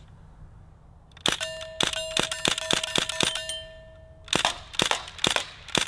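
MP40 replica CO2 BB gun fired on semi-auto: a quick string of sharp pops, about four a second, beginning a second or so in, with a steady ringing tone held beneath them. A second string of pops starts near the end.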